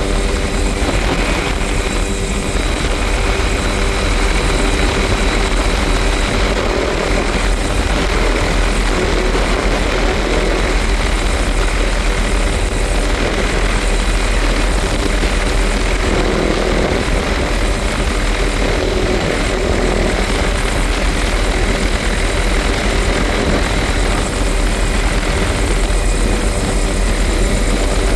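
Tour helicopter in flight with its doors off: loud, steady rotor and engine noise mixed with wind rushing through the open cabin.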